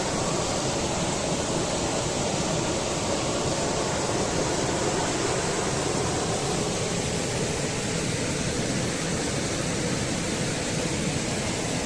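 River water rushing steadily, an even, unbroken rush of flowing water.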